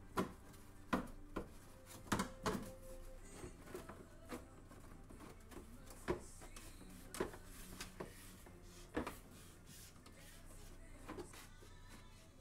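Irregular clicks and knocks of hand tools, bolts and heat-shield panels being handled while the underbody heat shields are refitted with 10 mm bolts, one knock about two seconds in ringing briefly.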